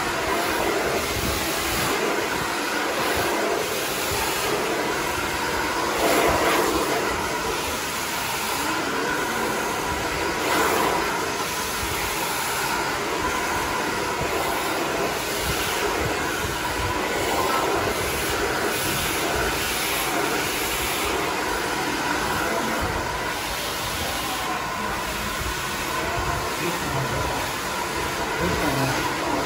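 Handheld hair dryer with a concentrator nozzle running steadily, blowing hot air onto a section of long hair as it is drawn through a round brush: a steady rush of air with a faint whine, swelling briefly a couple of times as the nozzle moves.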